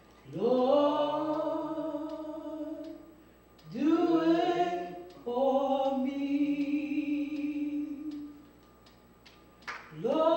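A woman singing a slow unaccompanied solo: three long held notes, each sliding up into pitch, with short pauses between them, and a fourth note starting near the end.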